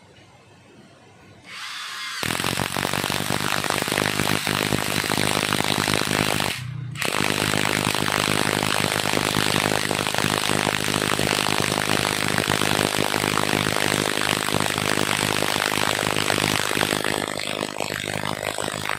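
Cordless impact driver driving a long lag screw into a wooden log, its hammer mechanism rattling fast and loud from about two seconds in. It stops briefly about seven seconds in, starts again, and drops to a lower level near the end.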